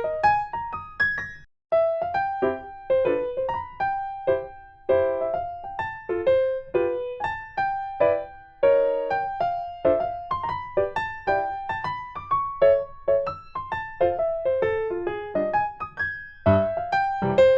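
Light background music: a gentle keyboard melody of short, quickly fading piano-like notes, with a brief break about one and a half seconds in.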